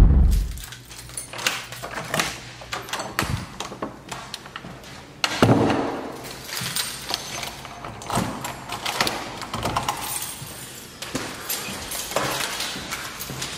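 Irregular clicks, knocks and light jangling, with a heavier thud about five seconds in.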